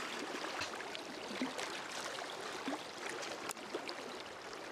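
Fast-flowing trout stream rushing through a rocky riffle: a steady hiss of water with small gurgles.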